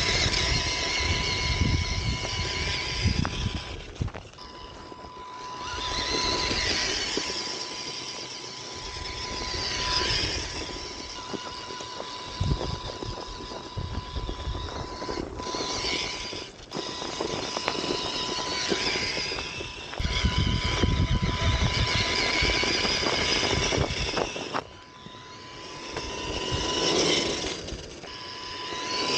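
Tamiya Wild Willy 2 radio-controlled car driving: the whine of its electric motor and gears rises and falls with the throttle, with a few short lulls. Bursts of low rumble come from the tyres running over grass and paving.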